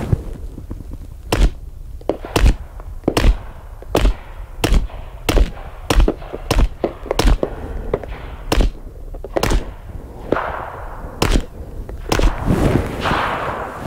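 Faxon Hellfire FX-19 9mm pistol fired through a Liberty Centurion suppressor, about fourteen shots at a steady pace of roughly one a second, with a couple of longer pauses. The suppressed shots come across as sharp thunks.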